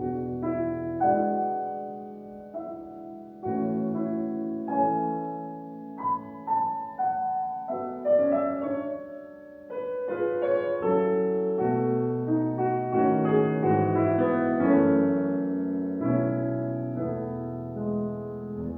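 Piano playing classical music, a sequence of struck chords that change every second or two.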